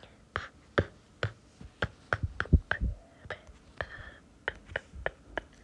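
A string of sharp, irregular clicks and taps, about three a second, with a couple of deeper thumps near the middle being the loudest.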